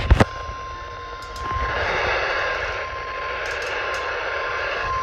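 Weather radio's steady single-pitch warning alarm tone, the NOAA Weather Radio alert tone that comes before a warning, heard over heavy radio static. The tone drops out under the static after about a second and a half and comes back near the end, with a couple of sharp clicks at the very start.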